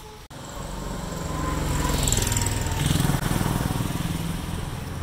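A motor vehicle's engine passing by on the street, building to its loudest about two to three seconds in, then easing off.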